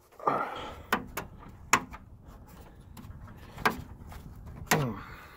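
Plastic headlight retaining clips on a Ford E450 RV being pushed and pried at by hand: about five sharp plastic clicks and knocks, with a little rubbing between them, as a stubborn clip holds fast.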